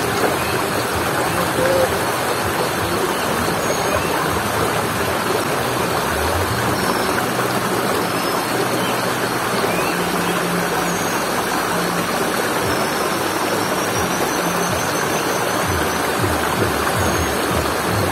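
Shallow rocky stream rushing steadily over stones and small cascades.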